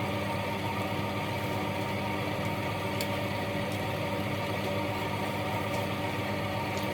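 Steady mechanical hum with several held tones, unchanging throughout, and a faint click about three seconds in.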